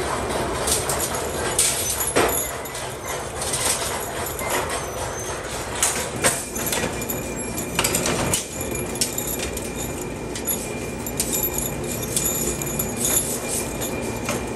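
Cut steel rod blanks for carriage bolts clinking and rattling against each other as they are picked from a pile and gathered by hand into a bundle, with irregular sharp clicks. Under them runs a steady din of workshop machinery.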